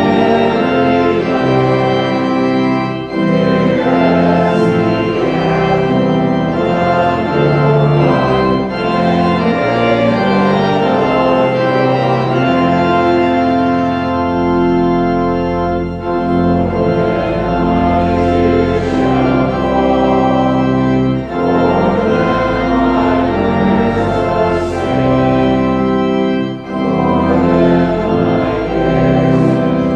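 Church organ playing slow sustained chords over held low pedal notes, the chords changing every second or two.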